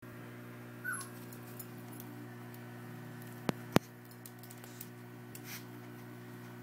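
Two sharp clicks, about a third of a second apart, near the middle, with a few fainter ticks, over a steady low hum.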